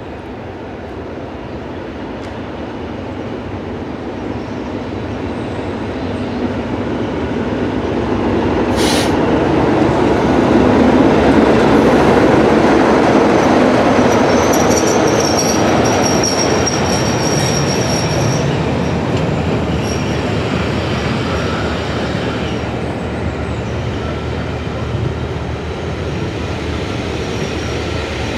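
BR Class 33 diesel locomotive approaching and passing close, its engine growing steadily louder to a peak about eleven seconds in. The coaches behind it then roll past with a high squeal from the wheels for a few seconds.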